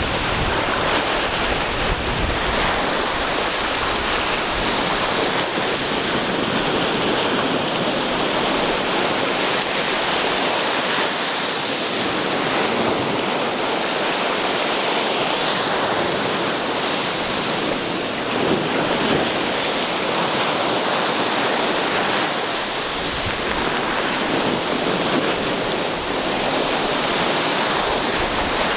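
Ocean waves breaking and washing on the shore in a steady, continuous rush that swells and eases every few seconds.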